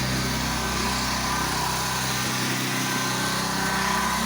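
Pressure washer's gas engine running steadily at a constant speed.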